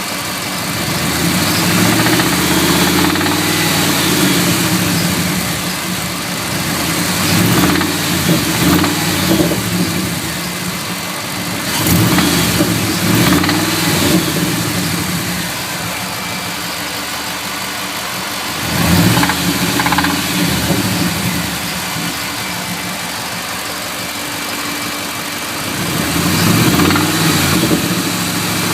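Ford 5.4 L 2-valve V8 engine idling and revved up briefly about five times, with a knocking noise whose cause is not yet known.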